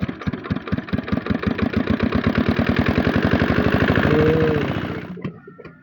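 Water pump engine turning over in rapid, even chugs, about ten a second, for some five seconds, then fading and stopping suddenly: it fails to start.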